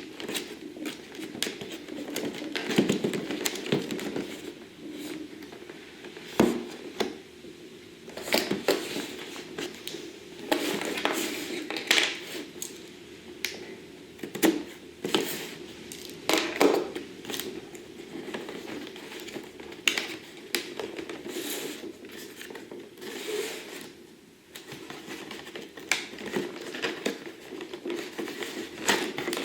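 Packaging being handled and opened by hand: irregular crinkling and rustling with sharp clicks and small knocks.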